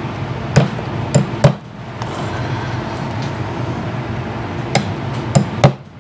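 A claw hammer tapping nails through the edge of a beaver hide into a wooden stretching board: six sharp taps, three close together about a second in and three more near the end.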